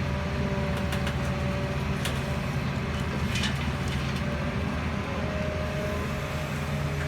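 Heavy diesel engine running steadily with a low hum, a faint steady whine above it and a few light clicks and knocks.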